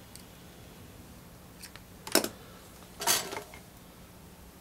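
Sharp metallic clicks about two seconds in, then a short metal clatter about a second later, as small hand tools and parts are handled against a steel amplifier chassis on a workbench.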